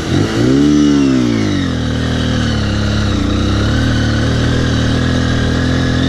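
Honda CBF 150's single-cylinder four-stroke engine, freshly restarted, revved once, its pitch rising and falling back over about a second and a half, then running steadily at low revs.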